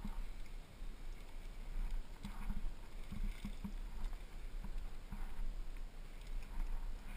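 Irregular soft thumps and scuffs of a climber moving on a granite slab, hands and rock shoes on the rock, picked up by a head-mounted camera over a steady low rumble.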